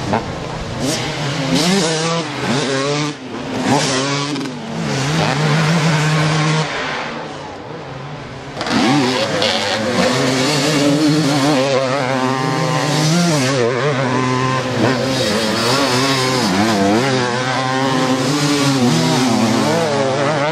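Several 250 cc two-stroke motocross bikes racing, their engines revving up and falling off in overlapping pitches as riders work through the corners. The sound drops back for a moment about seven seconds in, then rises again as more bikes come through.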